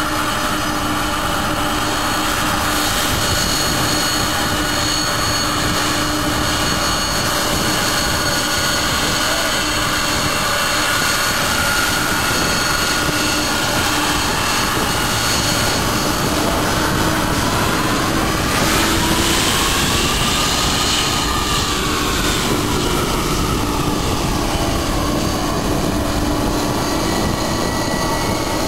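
Boeing 747 jet engines running as the airliner taxis and turns at the runway end: a steady rushing noise with a high whine. About two-thirds of the way through, one tone of the whine rises and falls once.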